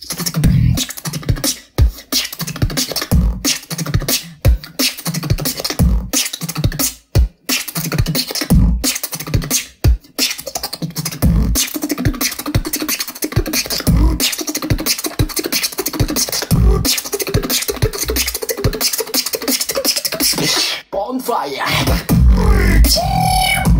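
Human beatboxer performing a fast routine: a dense rhythm of deep bass hits and sharp clicks. About 21 seconds in it breaks off briefly, then changes to a section with heavy bass and gliding pitched tones.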